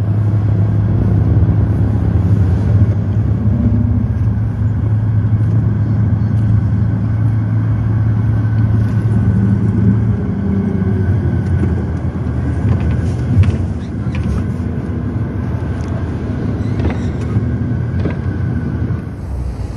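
Car driving, its steady engine and road noise heard from inside the cabin, with a few short knocks and clicks in the second half.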